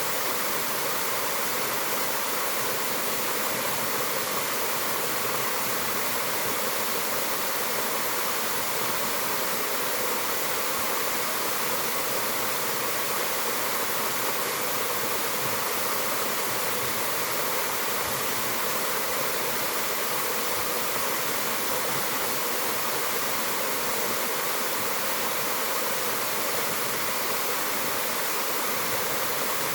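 Mountain waterfall: a steady, unbroken rush of falling water, bright and hissy.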